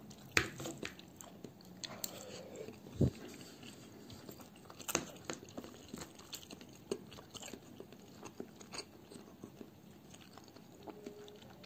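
Someone eating: quiet chewing with scattered clicks and scrapes of a metal spoon against a bowl, a few of them sharper than the rest.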